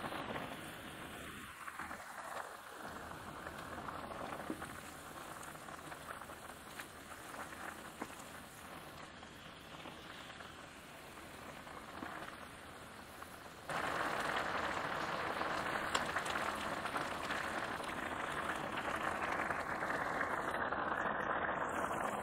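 Ramen broth bubbling at a rolling boil in a pot, a dense steady fizz of bursting bubbles. It gets suddenly louder about two-thirds of the way through.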